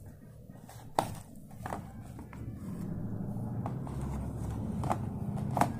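A cardboard sweet box being handled and its lid put back on: a sharp click about a second in, then a few light taps and ticks, another near the end, over a low rumble in the background.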